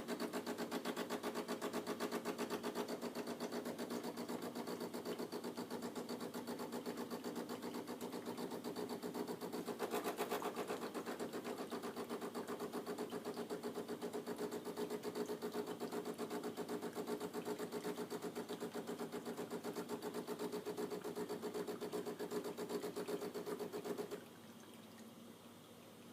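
DeLonghi Magnifica ESAM3300 espresso machine's pump buzzing steadily as it pushes hot water out of the two coffee spouts during its automatic start-up rinse cycle, then cutting off suddenly near the end as the rinse finishes.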